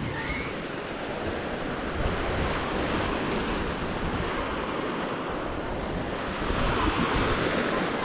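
Sea surf washing onto a sandy beach: a steady hiss that swells a little about two seconds in and again near the end, with wind rumbling on the microphone.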